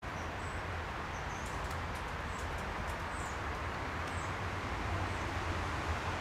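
Steady outdoor background hiss with a low rumble, and several short, high bird chirps over the first four or five seconds.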